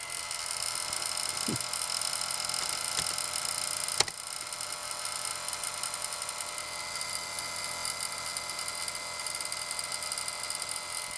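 Citizen U1DA-71A 3½-inch floppy drive trying to read a disk, running with a steady mechanical whirring and grinding and one sharp click about four seconds in. It is not sounding too good and fails to read: the drive is not ready, which the owner puts down to its degraded rubber drive belt and leaking capacitors.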